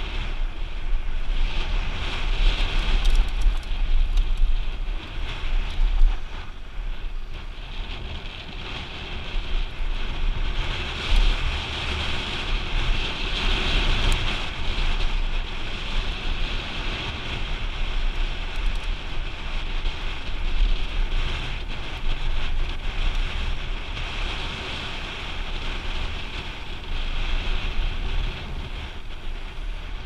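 Wind buffeting the microphone of a helmet camera on a mountain bike at speed, over the hiss of knobby tyres rolling on a dry dirt trail, with occasional small knocks and rattles.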